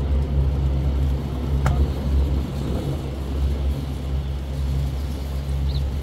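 A vehicle engine idling, a steady low hum, with a single short click about a second and a half in.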